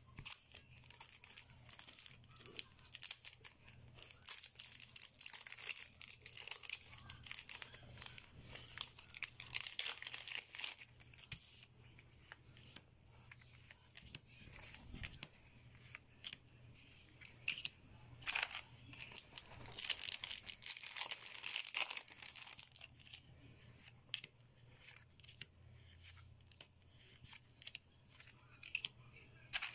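Yu-Gi-Oh trading cards being slid and flipped through by hand: an irregular run of short papery rasps and flicks as card slides over card.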